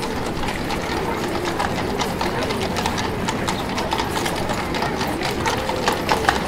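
Horses' hooves clip-clopping from several horse-drawn carriages, a dense irregular run of hoof strikes with a few louder ones near the end, over a murmur of voices.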